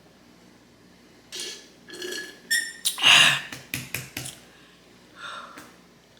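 Close-miked mouth sounds of eating black bean noodles in sauce: a few slurps and wet smacks, the loudest about three seconds in, followed by a quick run of four or five smacking clicks.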